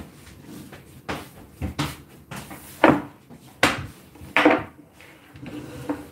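A handful of irregular knocks and clatters of kitchen things being handled and set down on the table, with a couple of louder knocks about three to four seconds in.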